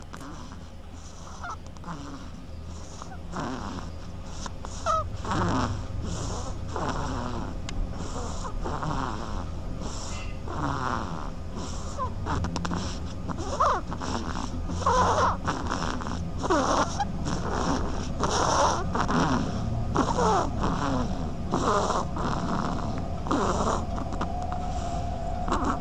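Duckling snoring in its sleep: a long run of short, squeaky snores, about one or two a second.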